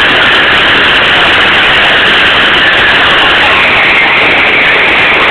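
Loud, steady rushing noise with no distinct tones or beats.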